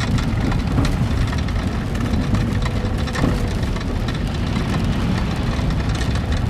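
A vehicle driving slowly on a wet gravel road in the rain: a steady low rumble of engine and tyres, with a few faint ticks.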